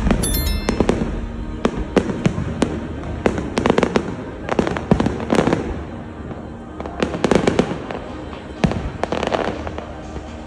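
Aerial fireworks bursting in quick succession: many sharp bangs and crackles, coming thickest around four, five and seven seconds in.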